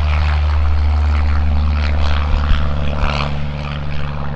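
Propeller-driven light aircraft's piston engine running steadily, a continuous drone with the rush of the propeller over it.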